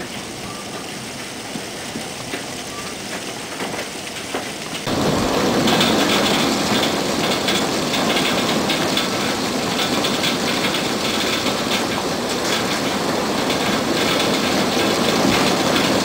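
Hailstones pelting a wooden deck and the trees around it, a dense steady patter of small hits. About five seconds in it abruptly becomes louder and denser.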